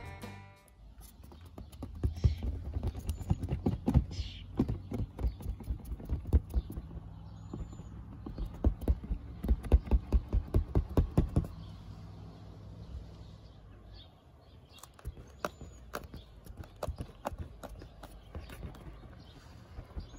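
A run of quick, irregular knocks and taps, coming thickest and most regularly for a few seconds midway, then sparser. A few brief high chirps sound over them.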